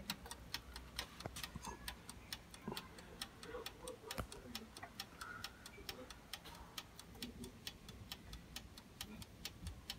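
Faint, rapid, even ticking of a toaster oven's mechanical wind-up timer as it counts down the last minute of the bake.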